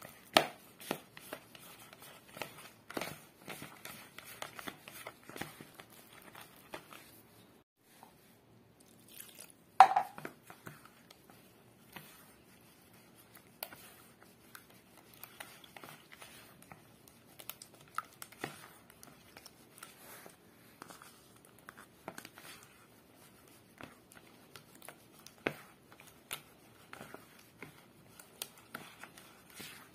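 Silicone spatula stirring flour batter in a plastic bowl: irregular wet scrapes and soft taps against the bowl's side, with one sharper knock about ten seconds in.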